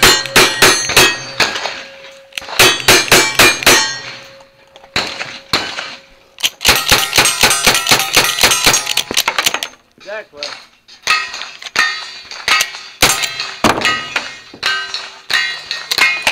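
Rapid strings of gunshots, each followed by the clang of a steel target ringing. The shots come first from single-action revolvers, then as a fast run from a lever-action rifle, then as slower, spaced shots as the shooter moves to a double-barrel shotgun.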